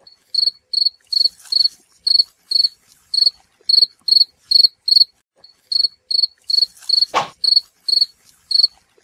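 Cricket-chirp sound effect: evenly spaced high chirps, about two or three a second, over total silence. This is the stock 'awkward silence' gag laid over the footage in place of the street sound.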